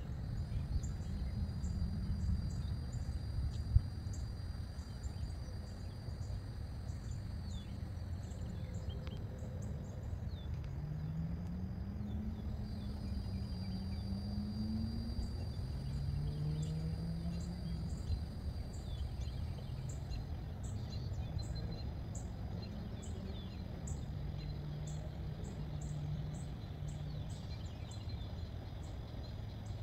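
Outdoor ambience under an approaching thunderstorm: a steady low rumble with insects chirping about once a second over a continuous high buzz. A few low, wavering drawn-out tones sound in the middle.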